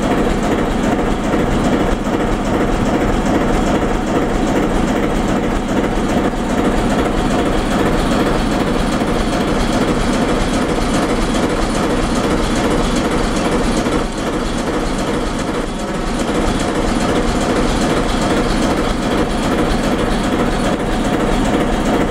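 ČD class 749 diesel locomotive's V12 diesel engine idling at close range, a loud, steady hum.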